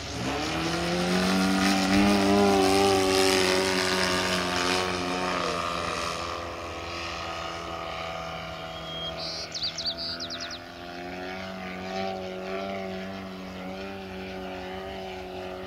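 DA-100 100cc single-cylinder two-stroke petrol engine and propeller of a giant-scale RC aerobatic plane. The throttle opens sharply at the start and the engine revs up high and loud for a few seconds, then drops back to a lower, wavering drone as the throttle is worked. A short run of high chirps sounds about nine to ten seconds in.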